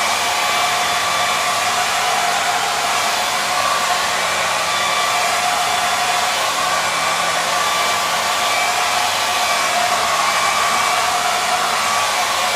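Hair dryer running steadily: an even blowing hiss of air with a faint whine of several steady tones from its fan motor.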